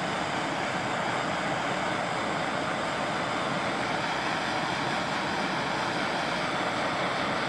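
Handheld gas torch burning with a steady hiss while its flame warms a gel-filled heat-shrink wire connector.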